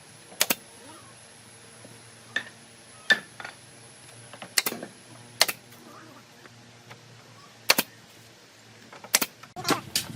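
Sharp, irregular knocks and taps, one every second or two, clustering near the end.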